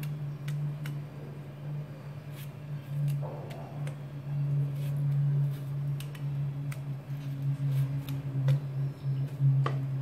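Knife cutting cherry tomatoes, a scatter of short sharp clicks and soft squishes as the blade goes through, over a steady low hum.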